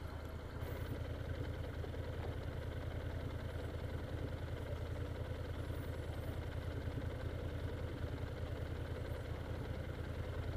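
Motorcycle engine idling steadily at a standstill, a low even pulse.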